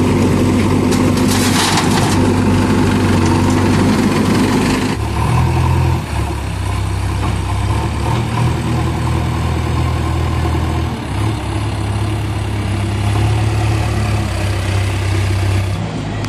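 Diesel tractor engines running steadily, with a short burst of hiss about a second and a half in. About five seconds in, the sound cuts to a JCB 3DX backhoe loader's diesel engine working, its note rising and falling as the loader moves soil.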